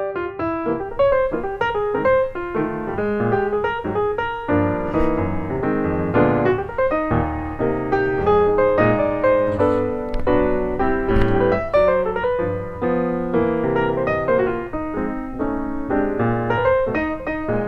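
Piano music: a steady run of notes, fuller and denser in the middle.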